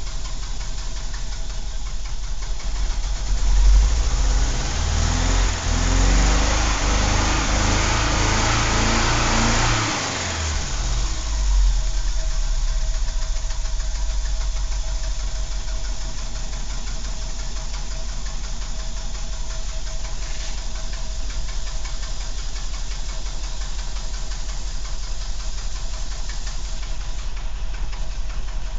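Renault 12 estate's four-cylinder engine idling, revved up about three seconds in and held raised for several seconds, then dropping back to idle around ten seconds with one short blip just after. It then idles steadily for the rest.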